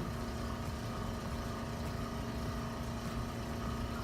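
Steady mechanical hum of a small electric motor running at an even level, with a constant mid-pitched tone and no pops or knocks.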